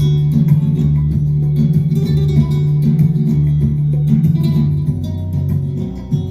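Acoustic guitar playing, plucked and strummed over held bass notes.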